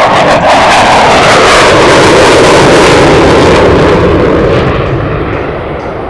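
Loud jet noise from a CF-18 Hornet's twin General Electric F404 turbofans as the fighter banks past in a hard turn. The pitch of the noise sinks steadily as it goes by, and it eases off toward the end.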